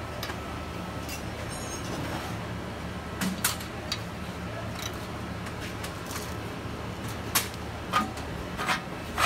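Steel spanners clinking against nuts and the steel housing as bolts are tightened: a handful of sharp metal clinks, most in the second half, some ringing briefly. A steady low hum runs underneath.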